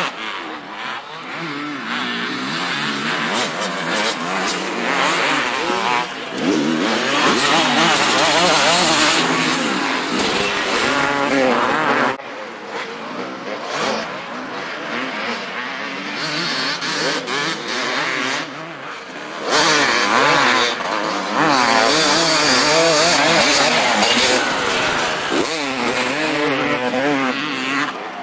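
250 cc two-stroke motocross bikes revving hard, the engine note constantly rising and falling as the riders work the throttle through the track. It swells loudest twice as bikes pass close, about a third of the way in and again past the middle.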